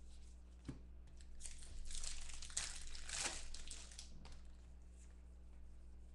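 Foil wrapper of a trading-card pack crinkling as it is torn open and handled, for about two and a half seconds from about a second and a half in, with a few light clicks before and after.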